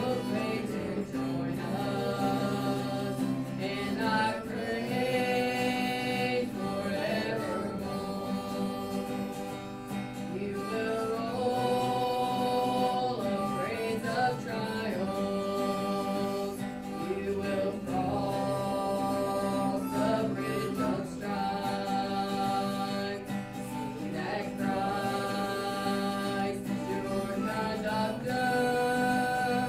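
A woman singing a gospel song with guitar accompaniment.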